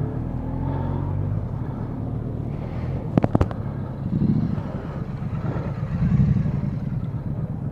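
Motorcycle engine running at low revs as the bike moves off, its note swelling briefly about four and six seconds in. A short cluster of sharp clicks comes about three seconds in.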